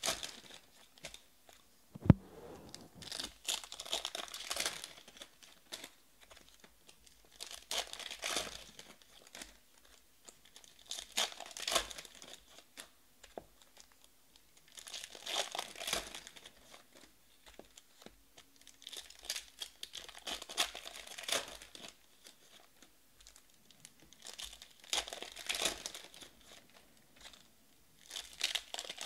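Foil trading-card pack wrappers being torn open and crumpled by hand, in crinkling bursts every few seconds as one pack after another is opened. A single sharp tap about two seconds in.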